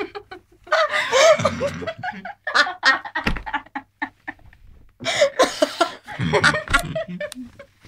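People laughing in two spells, about a second in and again about five seconds in.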